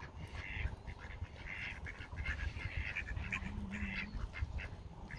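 Mallard ducks quacking, short calls repeated again and again.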